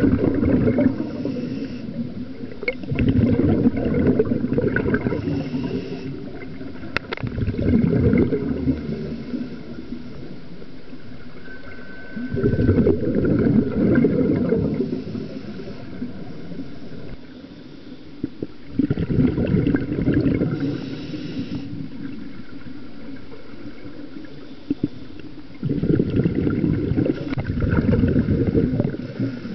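Scuba regulator exhaust bubbles from a diver breathing underwater: a low gurgling rumble on each exhalation, in bursts of two to three seconds about every five to six seconds, with quieter pauses while the diver breathes in.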